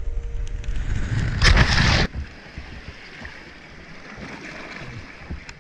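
Wind rushing over a GoPro's microphone as a cliff jumper falls, then a loud splash into the ocean about a second and a half in that cuts off abruptly, followed by a quieter steady rush of water.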